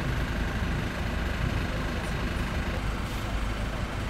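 Bus engine running with a steady low rumble, heard from inside the passenger cabin.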